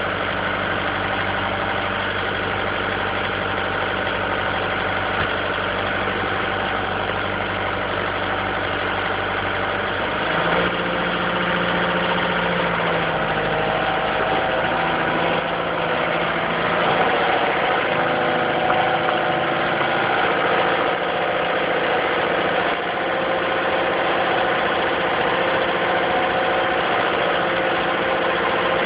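Excavator's diesel engine running steadily, its note changing about ten seconds in and then holding steady again.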